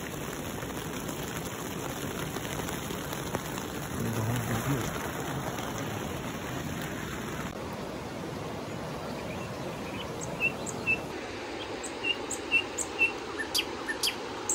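Rain falling on a tent's fabric, a steady hiss. About halfway through it gives way to the steady rush of a river, with short chirps near the end.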